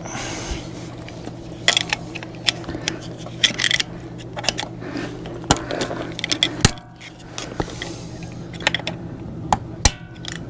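Irregular sharp metallic clicks and clinks of hand tools and a snap ring being worked onto the front axle shaft at a Ford F350's wheel hub, over a steady low hum.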